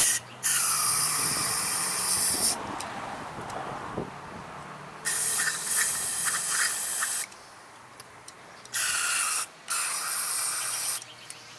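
Aerosol carburetor cleaner sprayed into the jets and passages of a small-engine carburetor, in three hissing bursts of about two seconds each, the last briefly broken.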